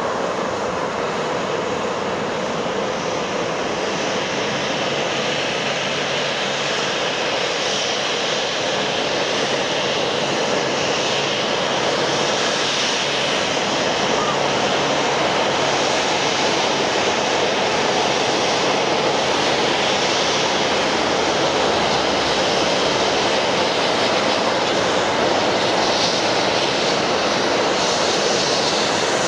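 Boeing 737-800's CFM56-7B turbofan engines at taxi power: a steady jet whine over a broad rush, growing slightly louder as the aircraft draws nearer.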